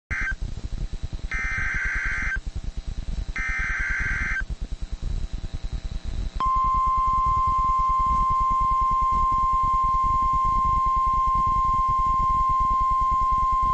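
NOAA Weather Radio Emergency Alert System signal: the SAME digital header sounds as three short screeching data bursts about a second apart. About two seconds later the steady single-pitch warning alarm tone starts and holds, marking a warning-level alert. Crackling radio static runs underneath.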